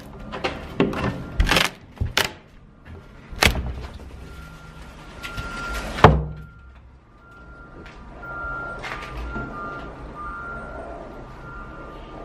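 Several sharp knocks and clunks, the loudest about six seconds in, followed by a low steady hum with a faint high tone that comes and goes.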